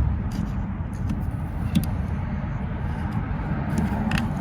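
Steady low rumble of vehicle traffic, with a few light clicks as plastic door-handle parts are pushed into place.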